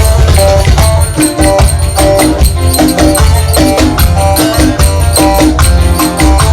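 Lively Ankara-style Turkish folk dance music: a melody of short notes over a heavy drum beat, with a steady stream of jingling zil (finger cymbals).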